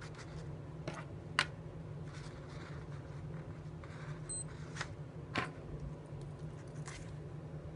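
Small clicks and taps of a digital wristwatch and a pencil being handled on a notebook, with one short, high electronic beep from the watch about four seconds in as its one-minute timer is set going. A steady low hum runs underneath.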